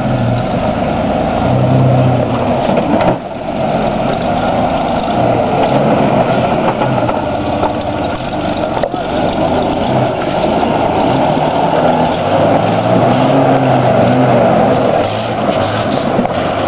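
Off-road vehicle's engine running under load, its pitch rising and falling as it is throttled over rough ground.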